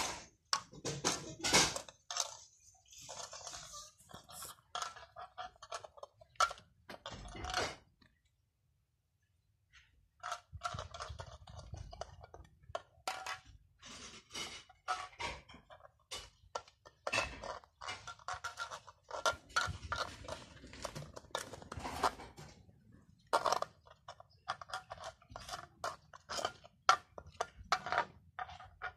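Cats licking and eating yogurt from a small cup: quick, irregular wet licking and smacking clicks, with a silent break of about two seconds a third of the way in.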